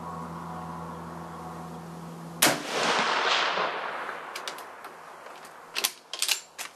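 A single rifle shot from a Mosin-Nagant bolt-action in 7.62x54R, about two and a half seconds in, with a long echo trailing off for a couple of seconds. Near the end come several sharp metallic clicks as the bolt is worked to eject the spent case and chamber the next round.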